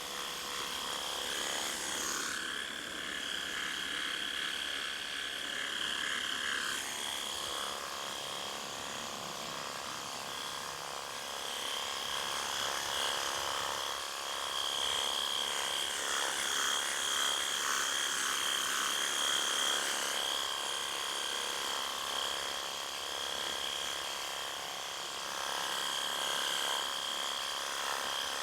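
Worx battery-powered pressure washer running: a steady high electric motor-and-pump whine over the hiss of the water spray.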